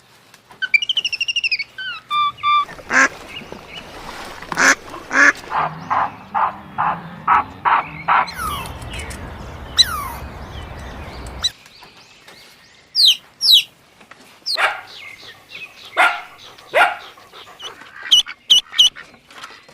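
Birds calling: a quick run of short repeated calls in the first half, then sharp high chirps.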